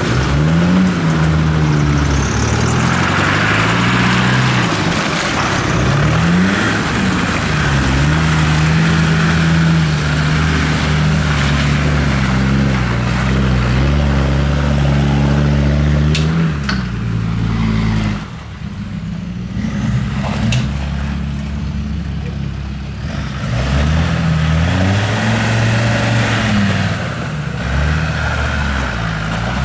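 A 4x4's engine working over off-road ground, its note rising and falling as it is revved repeatedly. It holds a steady pitch for several seconds in the middle, then eases off to a quieter, lower note for a few seconds before revving again. A couple of sharp knocks sound just past halfway.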